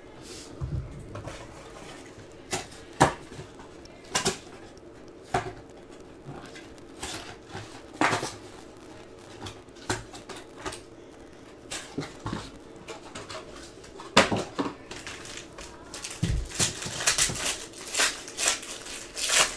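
Scattered taps and knocks from trading-card boxes and packs being handled on a tabletop, then, near the end, a dense run of crinkling and tearing as a foil card pack is ripped open.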